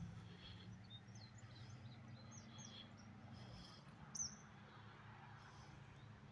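Near silence with faint, scattered bird chirps over a low steady hum, one clearer downward-sweeping chirp about four seconds in.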